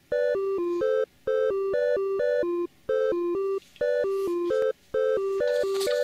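Electronic lullaby from a baby bouncer's built-in music unit: a simple beeping tune played in short phrases about a second long, each followed by a brief pause.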